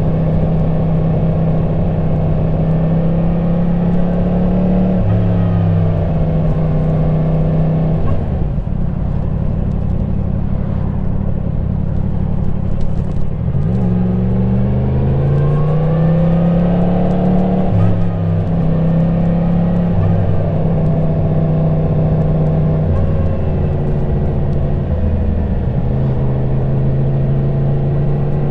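2022 Yamaha MT-10 SP's crossplane inline-four engine running on the stock exhaust while riding. Engine pitch rises and falls with throttle and gear changes, with a dip about a third of the way in and a rising climb in revs about halfway through.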